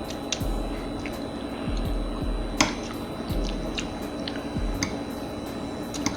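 Wet chewing and smacking while eating spaghetti and meatballs, with scattered sharp mouth clicks; one louder click about two and a half seconds in.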